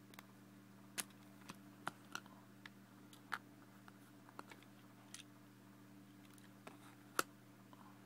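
Plastic LEGO pieces of a puzzle box clicking and clacking as they are handled and moved, in about ten scattered sharp clicks, the loudest near the end. A faint steady low hum runs underneath.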